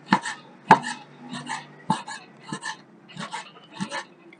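A cleaver chopping raw meat into small pieces on a wooden cutting board: a steady run of about six sharp chops, each with a lighter second knock just after the strike.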